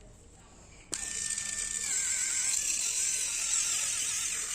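Electric callus remover switched on about a second in. Its motor runs with a steady buzzing whine as the rotating roller files dead skin off the heel, and the whine dips slightly in pitch and then wavers.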